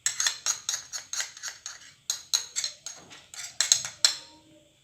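A small metal spoon clicking rapidly against a cup or container while spice powder is handled, about five light clicks a second. The clicks pause briefly about two seconds in and stop shortly after four seconds.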